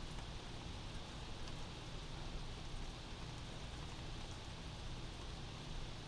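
Steady rain heard from inside a house, an even hiss of falling rain with a low rumble underneath.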